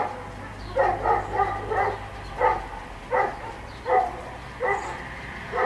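A dog barking repeatedly: about ten short barks, quicker in a cluster near the start, then about one every three-quarters of a second.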